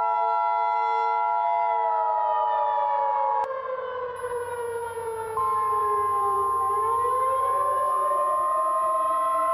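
Civil defense siren wailing, its pitch sliding slowly down and then rising again about two-thirds of the way through. Over it, the EAS two-tone attention signal stops abruptly about three and a half seconds in. About two seconds later a single steady alert tone starts, matching the 1050 Hz NOAA Weather Radio warning alarm.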